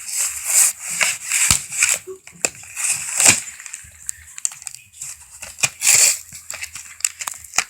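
Knife packaging being cut and torn open: a run of short rustling, crackling and scraping bursts with sharp clicks.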